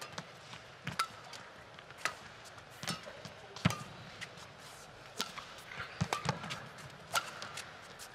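Badminton racket strikes on a shuttlecock during a fast singles rally: a string of sharp cracks, about one every second.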